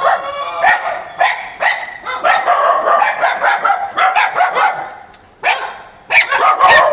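Stray dogs barking repeatedly in loud, sharp barks, about one or two a second, with a brief lull about five seconds in. The dogs are barking defensively, described as very protective.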